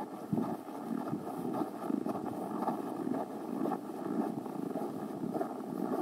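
Uneven, muffled rustling and rubbing right on the camera's microphone: handling noise from fur or clothing against the camera, with some wind on the mic.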